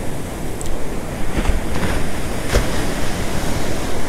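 Ocean surf washing and breaking, with wind noise on the microphone; a couple of short knocks in the middle.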